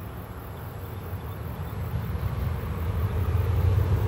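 A distant Hitachi diesel-electric locomotive hauling a train on the approach, its low engine rumble growing steadily louder as it nears.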